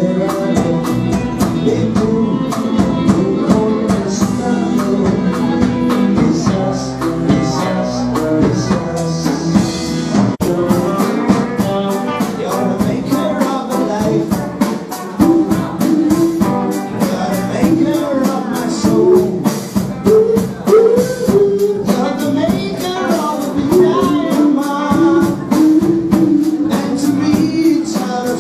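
Live rock band playing: two electric guitars, electric bass and drum kit with percussion, with male vocals. The drums keep a steady beat that comes through more plainly about a third of the way in.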